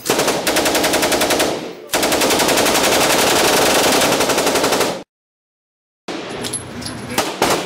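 M249 SAW belt-fed light machine gun firing on full auto in an indoor concrete range: a burst of almost two seconds, then after a brief pause one unbroken burst of about three seconds. After a second of silence, a few separate single shots follow near the end.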